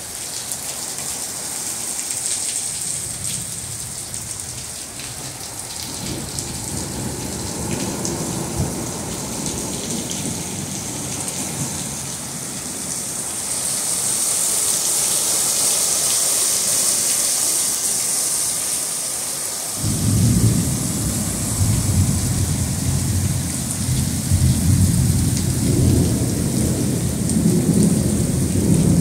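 Heavy rain pouring steadily in a thunderstorm, the hiss swelling louder a little before the middle. A deep low rumbling comes in about six seconds in and returns louder from about two-thirds of the way through to the end.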